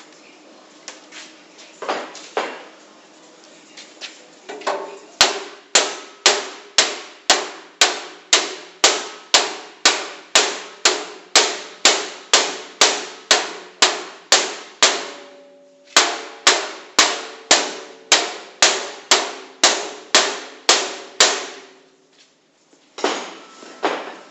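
Hammer blows on a wall-mounted metal safety locker in a forced break-in attempt: a few light knocks, then a long steady run of hard strikes, a little over two a second, each with a ringing after it, pausing briefly midway and then stopping. A short cluster of knocks near the end.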